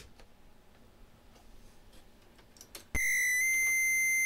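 Near quiet with a few faint clicks. About three seconds in, a DIY modular synthesizer's 4006 digital noise module starts a steady high-pitched tone instead of noise, stepping slightly higher in pitch half a second later, while the module is bugged out.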